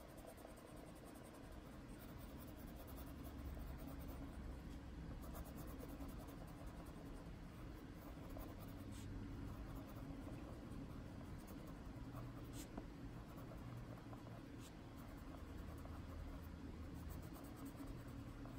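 Prismacolor colored pencil shading on paper: a faint, steady scratching.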